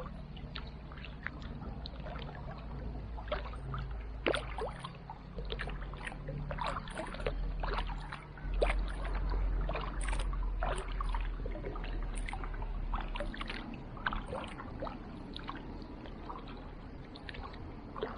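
Kayak paddling: water splashing and dripping off the paddle blades in many short, irregular splashes and drips, over a low rumble that grows louder for a few seconds about halfway through.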